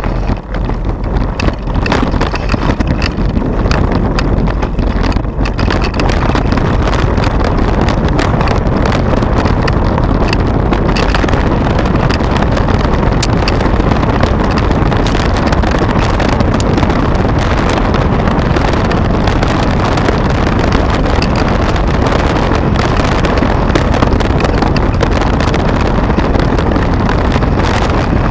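Wind buffeting a handlebar-mounted camera's microphone as a mountain bike rolls down a gravel track, with a continuous rattle and clicking from the tyres and bike over loose stones.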